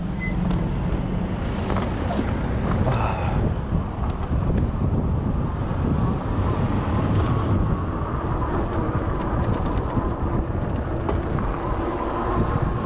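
Fat-tyre e-bike being ridden in strong, gusty wind: a steady rush of wind over the microphone and tyre noise. A faint whine rises slowly in pitch through the second half.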